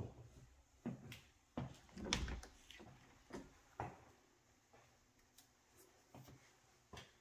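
A series of soft, irregular knocks and thumps, closer together in the first few seconds and thinning out after; the heaviest comes about two seconds in.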